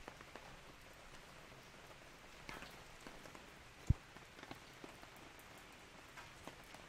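Raindrops falling on an umbrella: a steady light hiss with irregular drop taps, and one sharp low thump about four seconds in.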